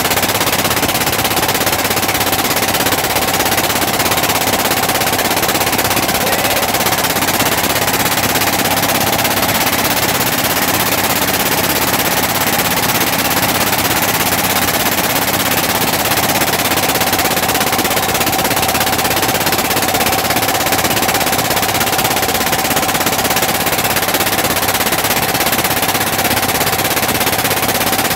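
Engine of a motorized river boat running steadily under way, a loud, fast, even chugging with a steady whine over it.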